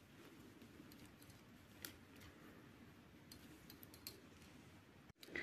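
Faint, scattered clicks of metal circular knitting needle tips knocking together as stitches are worked, over near-silent room tone.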